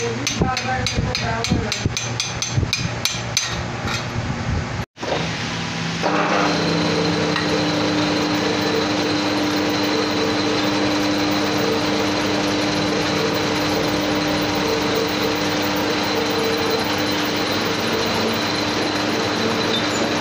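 Rapid hammer blows on metal, several a second, driving a fitting down onto a borewell pump bush. After a sudden cut about five seconds in, a metal lathe runs with a steady hum and a faint high whine.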